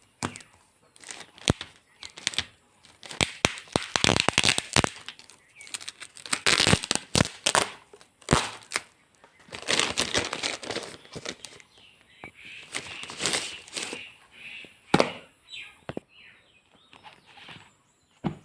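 Packaging being torn open and crinkled while unboxing a set of printed study modules: repeated sharp crackles, rips and rustles of plastic wrap and cardboard in irregular bursts.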